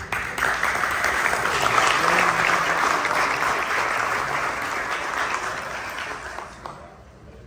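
Audience clapping, a dense applause that starts all at once and dies away near the end.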